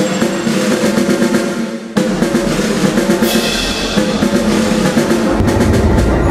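Music: a drum passage with snare rolls and bass drum over sustained low notes. There is a sharp break about two seconds in, and a deep rumble builds near the end.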